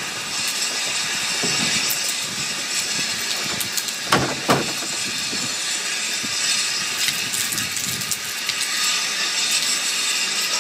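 Narrow-gauge steam locomotive standing in the station, hissing steadily in the rain, with two short knocks about four seconds in.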